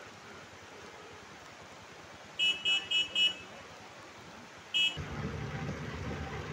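A vehicle horn honks four quick short toots, then once more about two seconds later, over a steady hiss of heavy rain and floodwater. About five seconds in, a louder low rumble sets in.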